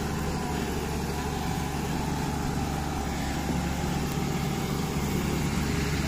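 Diesel engine of a Hyundai wheeled excavator running steadily as the machine drives away.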